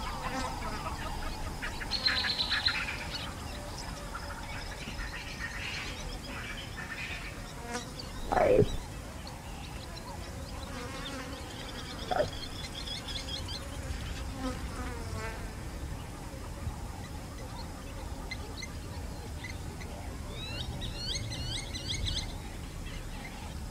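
Bush ambience: insects buzzing with scattered bird chirps, and one loud falling sound about eight seconds in.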